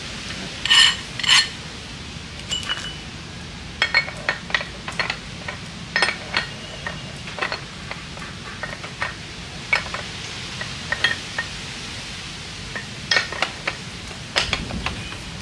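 Light metallic clinks and knocks of cast aluminium water-pump parts being handled and fitted together, scattered irregularly, with the two loudest about a second in.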